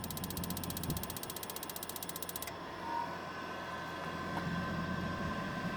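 RV tankless water heater's spark igniter clicking rapidly, then stopping about two and a half seconds in while a steady hum carries on. The burner is not igniting, which the owner puts down to no gas reaching it.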